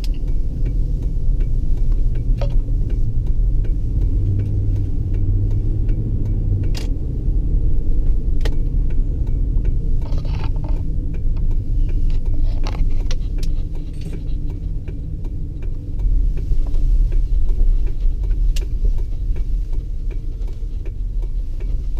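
Ford Expedition's engine, fitted with a K&N aftermarket air intake, running while the SUV is driven, with a steady low rumble and road noise and a few small clicks and rattles. It gets quieter about two-thirds through.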